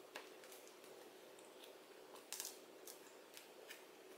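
Faint scattered clicks and taps of hands handling the backing of a metal picture frame, the sharpest a little over two seconds in.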